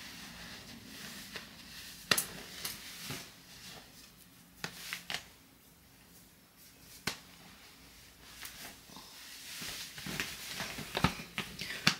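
Rustling and handling noises from clothing being picked up and moved, with about half a dozen sharp clicks and taps scattered through, the loudest about two seconds in and near the end.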